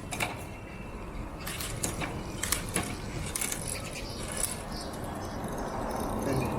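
Mountain bike chain running over the sprockets and through the front derailleur as the cranks turn, with irregular light metallic clicks over a low rattle; the chain is freshly cleaned and lubed with WD-40.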